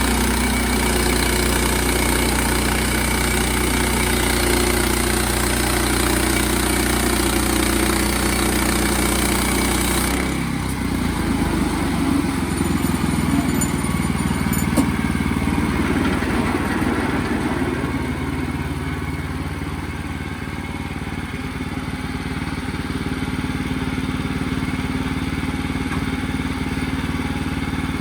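Sawmill engine running steadily. About a third of the way in the sound changes suddenly: the high hiss drops away and a lower, more uneven running carries on.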